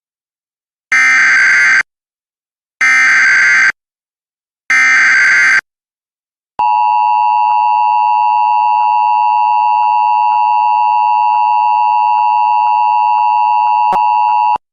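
Emergency Alert System alert opening: three screeching SAME digital header bursts, each just under a second long and about two seconds apart, followed by the steady EAS attention tone held for about eight seconds and cut off abruptly.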